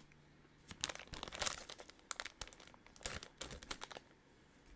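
Plastic snack packaging crinkling as it is handled in the hands, in several short bursts that die away near the end.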